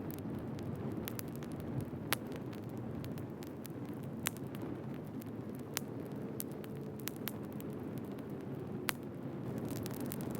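Firewood burning: a steady low rumble of flames with scattered sharp crackles and pops, the loudest about two seconds in.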